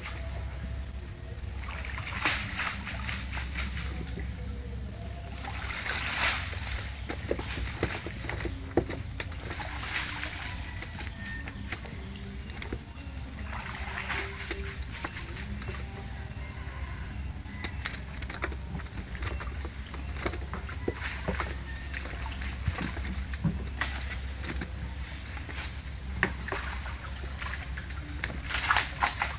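Canal water splashing and streaming off a wet mesh fish-and-shrimp trap (lú) as it is pulled out of the water and piled on a wooden boat, in surges every few seconds.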